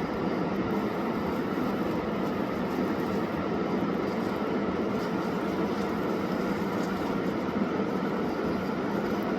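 Steady rushing roar of a fast-flowing river, the Khersan, running in full spate.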